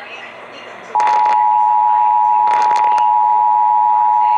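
Emergency Alert System attention signal: a loud, steady two-tone alarm (853 and 960 Hz sounded together) that starts about a second in and holds, following the alert's data header. A few brief crackles sound over it.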